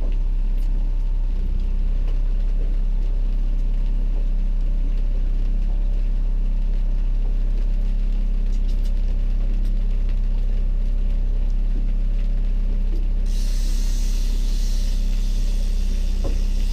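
Boat motor running steadily at slow trolling speed, a constant low drone. About thirteen seconds in, a steady hiss joins it.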